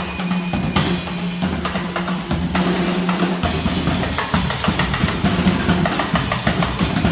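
Background music with a drum-kit beat and a held bass note.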